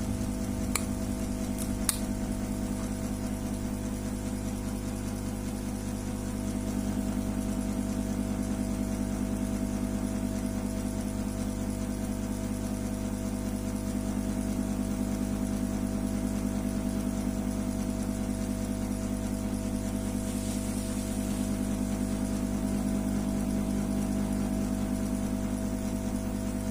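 A steady, even hum made of several fixed low tones, with two sharp clicks within the first two seconds.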